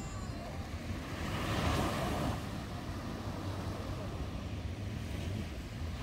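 Small waves breaking and washing up on a sandy beach, one wash swelling louder about a second in and then easing, with wind rumbling on the microphone.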